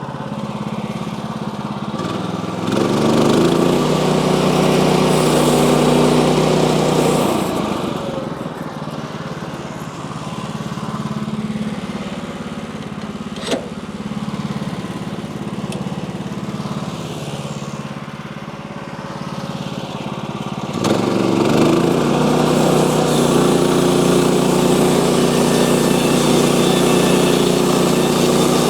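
Sawmill engine running steadily, speeding up and working harder about three seconds in, easing back a few seconds later, then speeding up again and holding for the last third. A single sharp click about halfway through.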